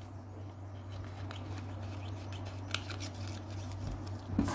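Small metal scissors snipping through the edge of a plastic sachet: a few faint, short, crisp cuts.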